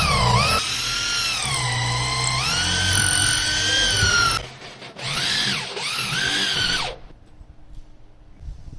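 Power drill running at varying speed, its whine rising and falling as the trigger is worked. It stops briefly about halfway through, runs again for a second and a half, then stops.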